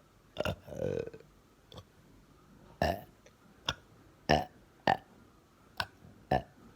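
A woman hiccupping over and over, about eight short, sharp hics in quick succession, roughly one every half second to second. The one near the start is drawn out and voiced.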